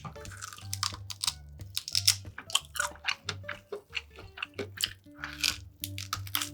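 Close-miked eating sounds: repeated bites and wet chewing of food, many short crunchy clicks in quick succession, over soft background music with a steady bass pattern.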